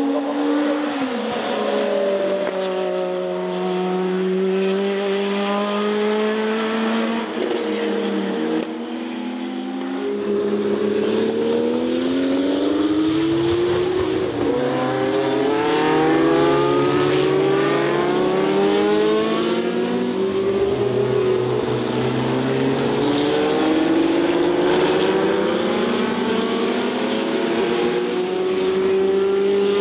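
Turbocharged race car engines accelerating hard, their pitch climbing and then dropping back over and over as they shift up through the gears.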